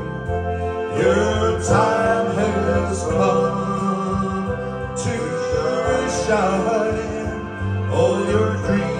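A man singing live into a handheld microphone, amplified through a PA speaker, over backing music with a steady bass line.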